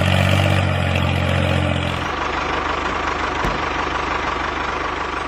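Tractor engine running steadily, a deep even hum for about the first two seconds, then a lighter, rougher running sound.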